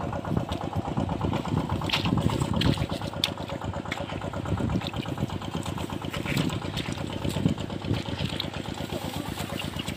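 Small engine running steadily with a fast, even beat: the water-pump engine draining the field.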